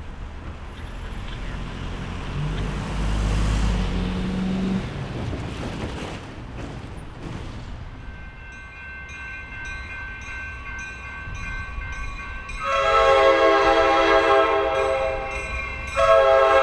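Train horn of an approaching Coaster commuter train: one long blast about three seconds long starting around two-thirds of the way in, and a second starting just before the end. A steady repeating ringing begins about halfway through, with a low rumble early on.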